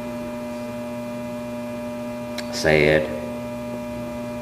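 Steady electrical mains hum with several fixed tones, unchanging throughout. A voice says a single word a little past halfway.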